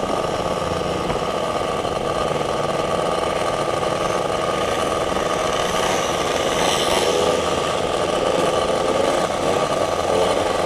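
MBK 51 Magnum moped's 50 cc two-stroke engine running at a steady pace while under way, heard from the handlebars.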